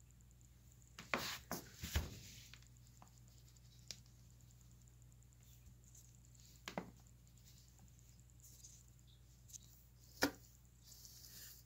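Quiet room tone broken by a handful of scattered soft knocks and rustles, a cluster of them about a second in and the sharpest about ten seconds in.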